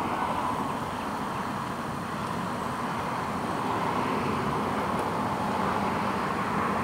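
Steady outdoor background noise, an even rush with no distinct events, of the kind of distant road traffic; the goat does not bleat.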